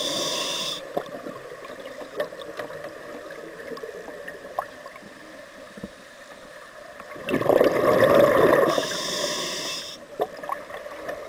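A scuba regulator heard underwater: an inhalation hiss at the start, a quieter stretch with a few faint clicks, then a burst of exhaled bubbles about seven seconds in, followed at once by another inhalation hiss.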